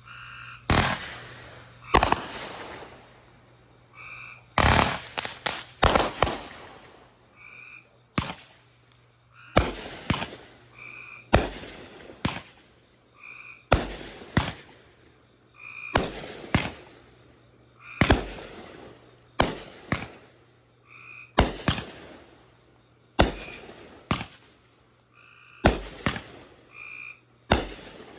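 Consumer fireworks going off in a steady series of sharp bangs, one every second or two, several with crackling tails. Between the bangs, short croaking calls repeat over and over.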